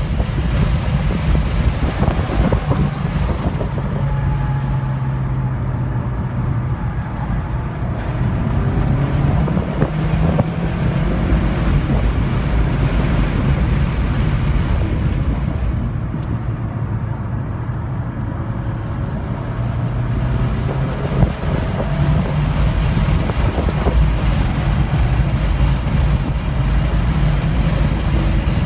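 2015 Volkswagen GTI's turbocharged 2.0-litre four-cylinder engine under hard track driving, heard from inside the cabin. The engine note rises and falls through acceleration and gear changes, easing off twice for corners, over steady tyre and road noise.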